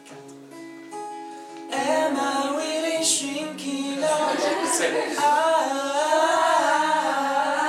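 Acoustic guitar picking a few quiet notes, then about two seconds in a group of women's and men's voices comes in loudly, singing together in harmony over the guitar.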